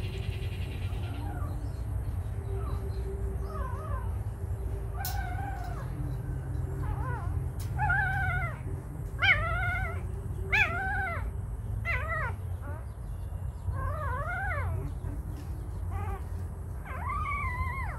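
A young animal whimpering: a string of short, high calls that each rise and fall, roughly one a second, louder from about five seconds in.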